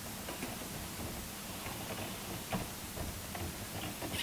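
Electrical wires being handled and tucked into a breaker panel: scattered faint clicks and taps of wire and metal, the sharpest a little past halfway, over a low steady hum.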